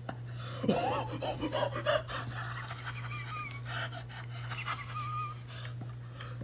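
A person wheeze-laughing: a high squeal about a second in, then a run of gasping, whistling breaths that die away near the end.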